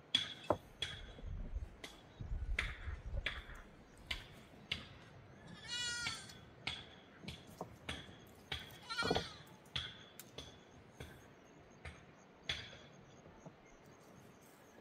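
Small livestock bleating twice, a quavering call about six seconds in and another about nine seconds in, amid scattered sharp knocks and taps.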